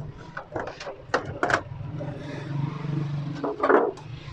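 Knocks and clicks of a plastic LED TV back cover being handled and lifted off, with a loud cluster of knocks near the end. Underneath runs a steady low hum that swells in the middle.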